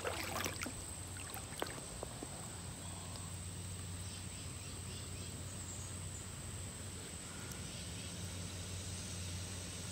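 Shallow creek water with a few small splashes and clicks in the first two seconds as a hand disturbs it. After that there is only a faint steady hum and hiss, with a thin high-pitched tone throughout.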